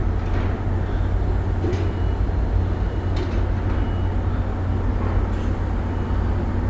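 Steady low rumble of a car ferry's engines running at the dock, with faint short high beeps sounding now and then.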